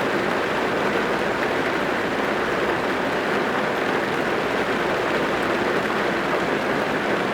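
Steady rain drumming on a car's roof and glass, heard from inside the car as a dense, even patter with no breaks.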